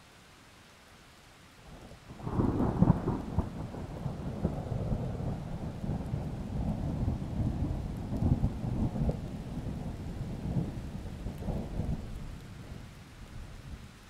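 A long roll of thunder that breaks about two seconds in and rumbles on in uneven swells for roughly ten seconds before fading, over light steady rain.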